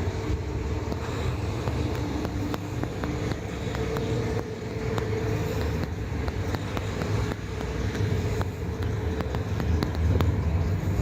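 Steady low rumble of road vehicle traffic, with scattered light clicks over it.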